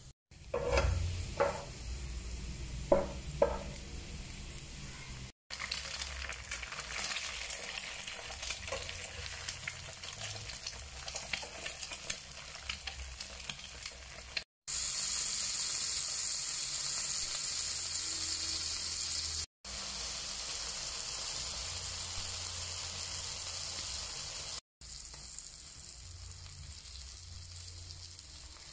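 Garlic and then eggs frying in hot oil in a nonstick frying pan: a steady sizzle, loudest and hissiest through the middle, with a metal spatula stirring. A few sharp knocks come in the first few seconds, and the sizzle drops out abruptly several times.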